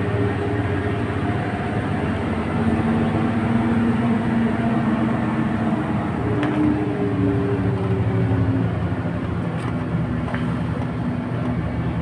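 Cabin noise inside a moving coach bus: a steady engine drone and road rumble, the engine's hum shifting up and down in pitch a few times.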